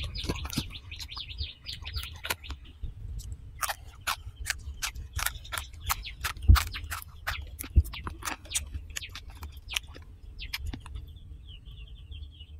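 Close-up chewing and crunching of roasted quail, a run of sharp clicks and crackles with a couple of heavier thuds in the middle. Small birds chirp in the background at the start and again near the end.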